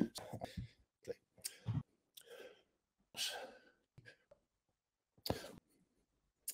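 A man talking in short, broken snatches over a video call, each phrase cut off to dead silence in between.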